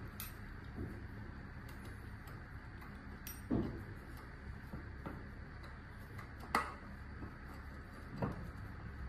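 A few sharp small metallic clicks and taps of a screwdriver working the screws of an electric bike hub motor's side cover, over a steady low hum.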